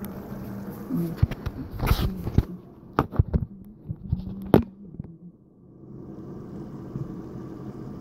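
Handling noise from a phone being picked up and set down: rubbing and a string of knocks and clatters over the first five seconds, the sharpest about three and four and a half seconds in, then a steady faint background.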